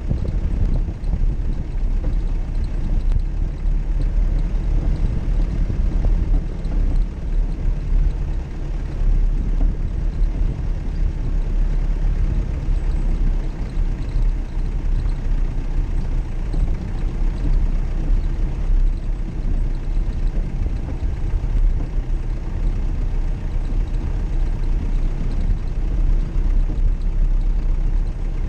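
Off-road vehicle engine running, a steady low rumble without a pause.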